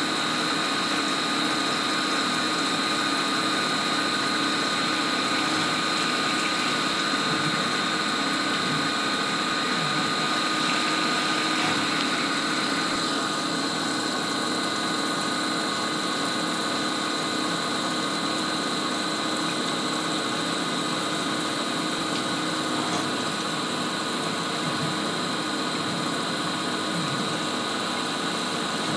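CNC milling machine cutting an anti-roll bar top plate under flood coolant: the spindle and end mill run steadily, with several steady high tones over the hiss of coolant spraying onto the cut. About halfway through, part of the higher hiss eases a little.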